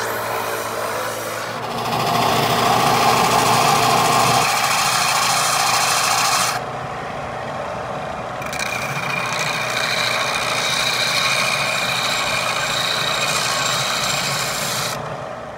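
Bench belt sanders running with work pressed to the belt. First the wooden handle of a forged spatula is sanded on a small Central Machinery belt sander, getting louder at about 2 s and stopping around 6.5 s. From about 8.5 s the steel blade is ground on a larger belt sander, a steady grinding with a thin high whine, throwing sparks.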